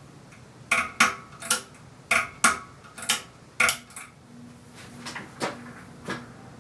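A ceiling fan being switched up to high speed: a run of about eight sharp, irregular metallic clinks, then a few weaker ones, with a faint motor hum coming in about halfway.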